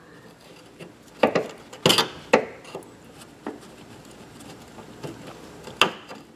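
Flat screwdriver tip scraping and clicking against the metal spring retaining clip on a gas trunk strut's ball-socket end as the clip is pried out. A few sharp clicks come between about one and two and a half seconds in, and another comes near the end.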